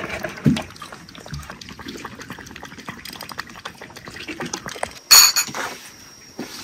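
Cat lapping milk from a ceramic bowl with quick, small wet licks. About five seconds in, a sharp clink of dishware rings briefly and is the loudest sound.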